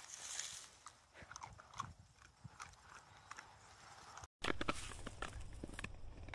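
Dog chewing on a hard plastic object, making scattered irregular clicks and crackles. About four seconds in there is a brief dropout, and a steady low rumble comes in underneath.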